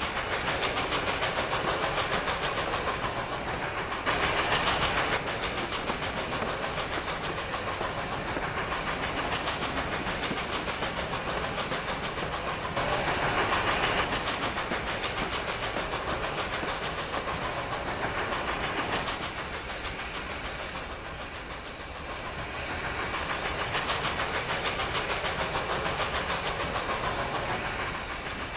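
Strasburg Rail Road No. 90, a 2-10-0 steam locomotive, running with its train: a steady rhythmic hiss and rattle that swells louder twice, about 4 and 13 seconds in.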